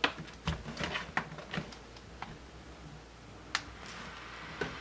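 A scattered series of light clicks and taps from handling the laptop as it is switched on.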